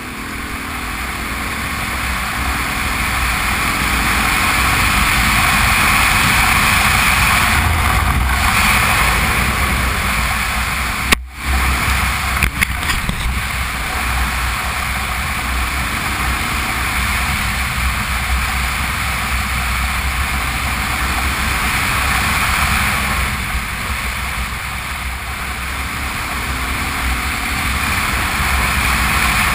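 Honda Transalp V-twin motorcycle riding along a gravel road, heard from a camera mounted on the bike: a steady rush of wind and tyre noise over the engine's low drone. A single sharp click about eleven seconds in.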